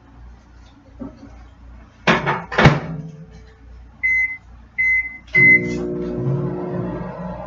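A microwave oven being restarted: two thuds about two seconds in, then three short beeps from the control panel, after which the oven starts running with a steady hum. The sandwich is going back in because it is not hot enough yet.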